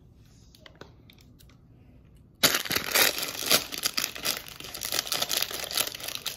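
Plastic Lego parts bag crinkling as it is handled and cut open with scissors, starting suddenly about two and a half seconds in after a quiet stretch with a few faint clicks.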